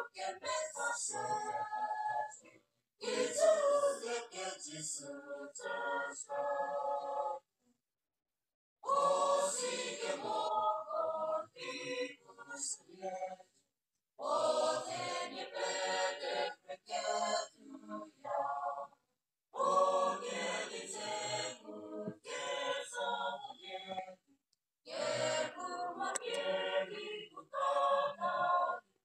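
Mixed choir of women and men singing, phrase by phrase, with short pauses between the phrases.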